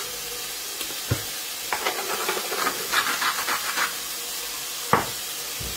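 Onions and water chestnuts sizzling gently in a frying pan as salt and pepper go over them: a steady hiss, with two sharp clicks and a run of short scratchy rattles in the middle.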